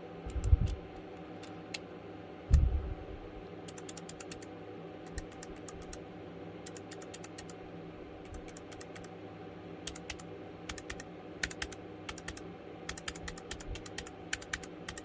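Typing on a Keychron K3 low-profile mechanical keyboard fitted with clicky blue switches: irregular runs of sharp clicks. Two dull thumps come in the first few seconds, before the clicking starts.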